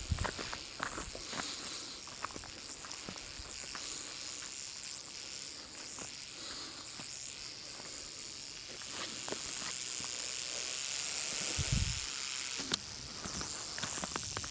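Sidewinder rattlesnake rattling: a steady high hiss-like buzz, with a few faint clicks around it.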